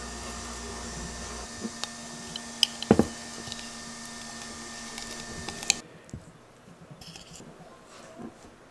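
A spoon scooping extra crunchy peanut butter out of a glass jar, squishing, with a few short knocks of the spoon against the glass; the loudest knock comes about three seconds in. A steady background hum runs under the first six seconds and then stops.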